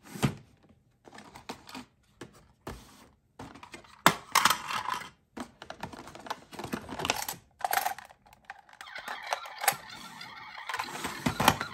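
Plastic toy cars, cardboard boxes and blister packs being rummaged through in clear plastic storage bins: irregular clicks, knocks and crinkling rustles.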